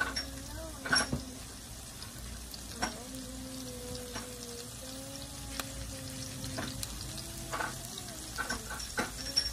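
Chopped garlic frying in vegetable oil in a nonstick pan, a steady gentle sizzle, with a few sharp clicks and taps, the loudest about a second in and near the end.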